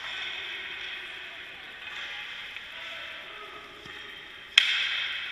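One sharp crack of a hockey stick striking a puck in a shot, about four and a half seconds in, ringing on in the rink's echo, over a steady hiss of skates scraping the ice.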